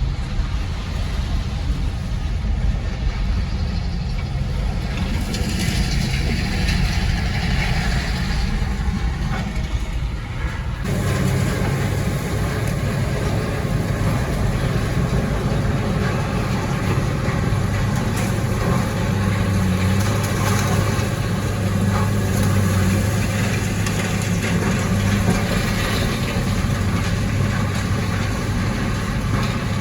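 A vehicle engine idling with a steady low hum; the sound changes abruptly about eleven seconds in, as at an edit.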